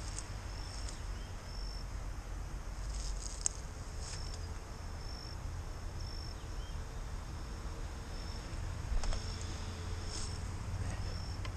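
Insect chirping: short high-pitched calls repeating roughly once a second over a steady low rumble, with a couple of brief clicks.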